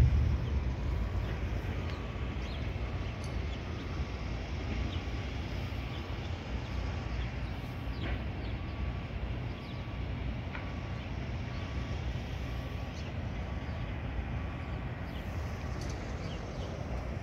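Outdoor ambience: a low rumble of wind and distant traffic that eases off in the first second and then stays steady. Through it runs a faint short beep repeating about twice a second, with a few faint chirps or ticks.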